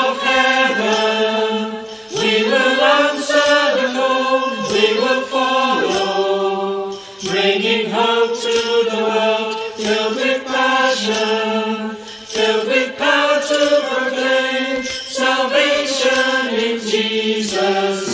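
Congregation singing a hymn chorus with musical accompaniment, the melody moving in long held notes with short breaks between phrases.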